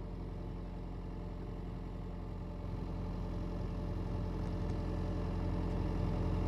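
Excavator's diesel engine running steadily while the hydraulics open the bucket, the engine note slowly growing louder from about two and a half seconds in.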